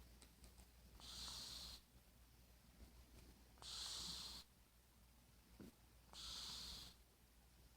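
Domestic cat snoring in its sleep: three faint, airy snores, each under a second, evenly spaced about two and a half seconds apart.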